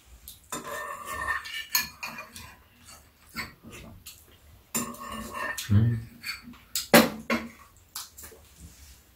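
Metal spoons clinking and scraping against ceramic bowls during a meal, a series of sharp separate clinks with the loudest about seven seconds in.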